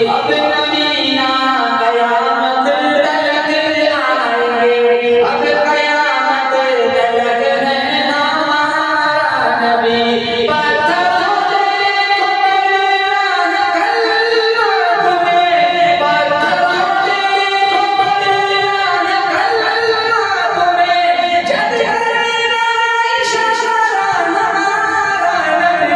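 A man singing a naat, an Urdu devotional poem in praise of the Prophet, solo in a continuous melodic line of long, wavering held notes.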